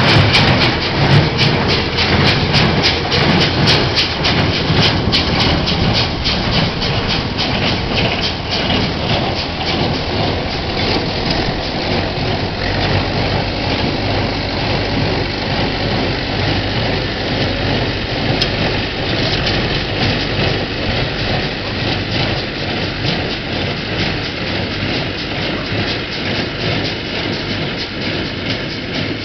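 Sipma Z-224 small square baler running while baling hay, its pickup and plunger mechanism clattering over the steady running of the towing tractor's diesel engine. The sharp clatter is loudest in the first several seconds and the whole sound grows fainter as the rig moves away.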